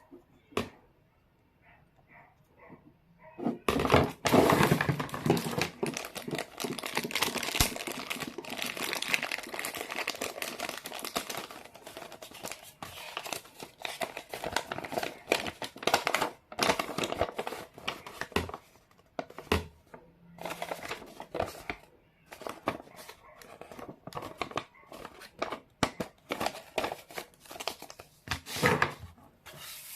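Toy packaging being crinkled and torn open by hand. It starts about four seconds in with a long stretch of dense crinkling, then breaks into scattered crackles and clicks.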